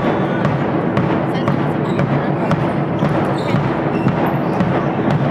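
Echoing sports-hall noise during a handball match: a continuous din of voices with many sharp knocks of the handball bouncing on the floor and being caught.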